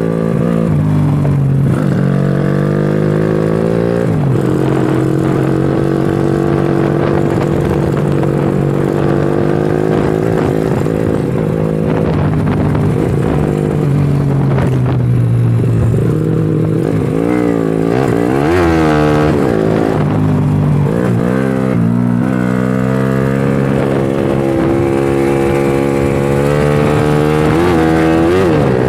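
Honda Astrea Legenda 2's single-cylinder four-stroke engine running under load on a test ride, its note held fairly steady and then rising and falling quickly several times about two-thirds through and again near the end, as the throttle and gears change. The carburettor has a 120 main jet and 42 pilot jet, which the builder says still runs wet at low revs because the pilot jet is too large.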